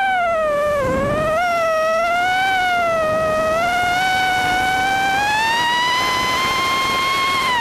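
Miniquad drone's brushless motors and propellers whining in flight, the pitch rising and falling with the throttle: it dips about a second in, then climbs steadily to its highest near the end.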